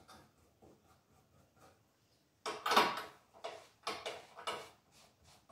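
Handling noise from the metal coffee roaster being shifted on a cloth towel: quiet at first, then a loud scuff about two and a half seconds in, followed by a run of shorter scrapes and rustles.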